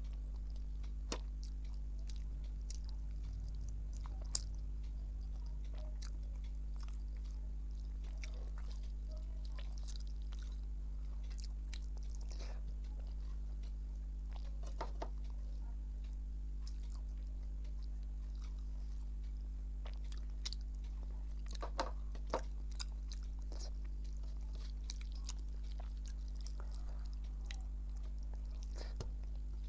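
A person chewing and biting a meal of rice, fish and dal, with scattered short wet clicks of mouth noise and a couple of sharper bites about 4 seconds in and around 22 seconds. A steady low electrical hum runs underneath.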